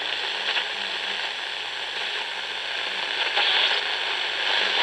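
Steady crackling static hiss, with a faint low hum beneath it.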